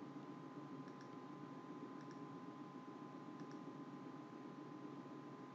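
A few faint clicks from computer input, some in close pairs, over a steady low electrical hum in the recording.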